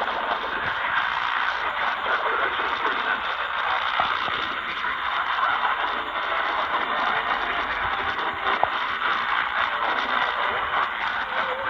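Radio static: a steady, thin hiss with fine crackling and scattered small clicks, sounding as if heard through a radio receiver.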